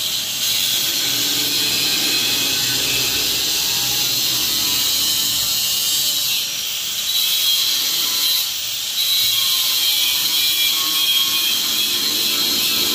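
Handheld angle grinder with its disc biting into a metal cylinder, a steady high-pitched grinding that eases briefly twice, about six and a half and eight and a half seconds in.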